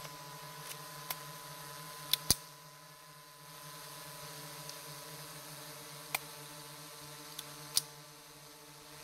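Distant gunshots: a handful of sharp cracks at uneven intervals, two close together about two seconds in being the loudest, over a steady low hum.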